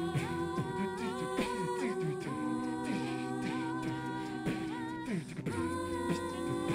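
An a cappella vocal group singing layered, wordless held chords, with a low vocal bass line and mouth percussion keeping a steady beat.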